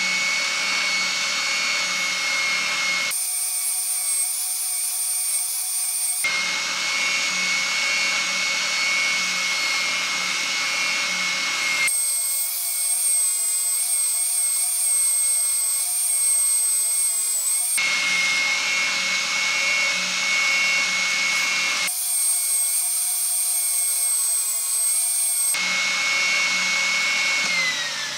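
Spindle sander running with a steady high whine while a wooden guitar headstock is sanded against its drum; the sound shifts abruptly every few seconds. Near the end the motor is switched off and its whine falls in pitch as it winds down.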